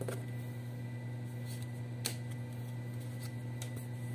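Hands handling a cardboard shipping box and a small tag: a few faint taps and clicks, the sharpest about two seconds in, over a steady low hum.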